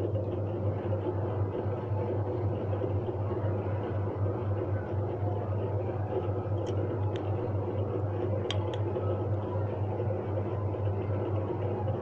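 A steady low electrical hum, with a few light clicks of plastic from the opened washing machine spin timer being handled, about two-thirds of the way through.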